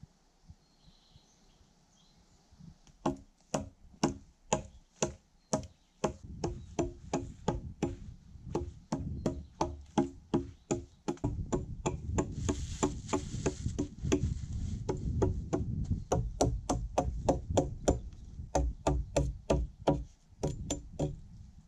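Hatchet chopping into a stripped log in quick, steady strokes, about two to three a second, starting about three seconds in.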